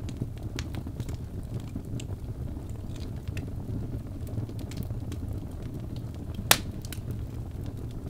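Wood fire burning in a fireplace: a steady low rush of flames with scattered small crackles, and one loud sharp pop from the burning logs about six and a half seconds in.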